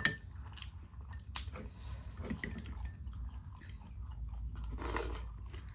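Close-miked chewing and mouth sounds of someone eating a meal of rice, dal and chicken: wet smacks and small clicks, with a sharp click right at the start and a brief louder noise near the end.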